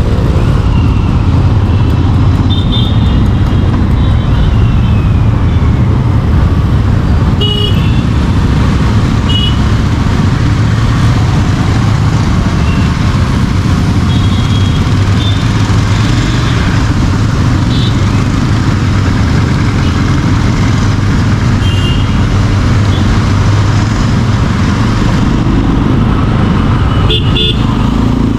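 Royal Enfield Interceptor 650's parallel-twin engine running steadily while riding in traffic, with several short vehicle horn toots over it.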